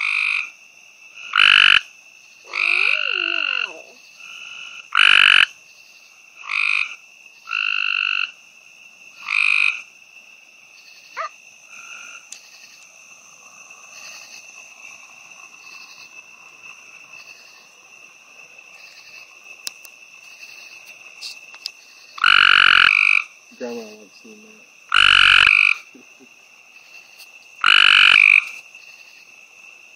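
Gray treefrog calling: a run of short, loud trills, each about half a second to a second long, about seven in the first ten seconds, then a quiet stretch of some twelve seconds, then three more near the end. A steady high-pitched drone sits behind the calls.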